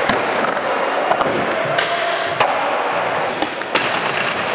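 Skateboard wheels rolling over wooden ramps, broken by several sharp clacks of the board hitting and landing.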